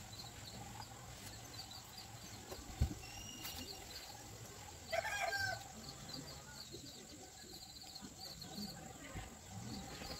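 A bird calls once, a short pitched call about five seconds in, over a quiet background with faint high chirps.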